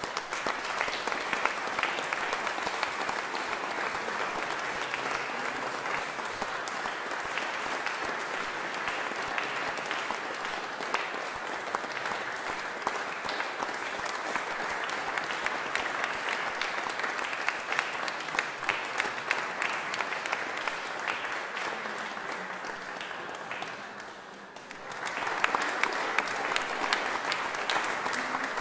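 Audience applauding with dense, steady clapping; the applause dies down briefly near the end, then swells again.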